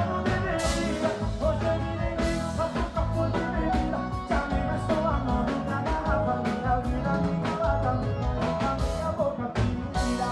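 Live band music with a singer on stage and steady drum hits, recorded on a phone from within the crowd at a sertanejo show.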